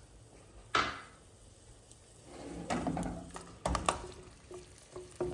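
Wooden spatula knocking and scraping against a cooking pot while stirring garlic cloves in olive oil: one sharp knock about a second in, then a cluster of knocks and scrapes a little later.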